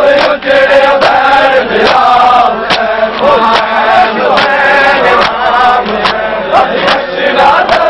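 A crowd of men chanting together in a mourning lament, with the sharp slaps of matam, hands striking bare chests in rhythm, about two a second.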